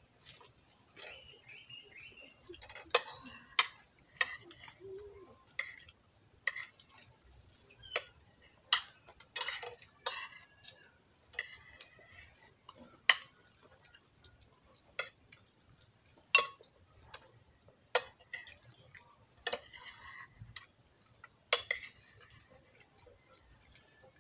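Metal spoons clinking and scraping against a ceramic plate and bowl while people eat, in short, sharp, irregular clinks every second or so.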